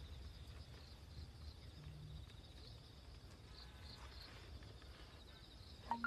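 Faint outdoor ambience: a low rumble with a faint, steady high-pitched buzz above it.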